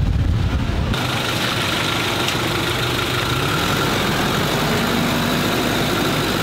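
Passenger van's engine running as the van drives slowly along a dirt road. A heavy low rumble gives way about a second in to a steadier, brighter engine and road noise.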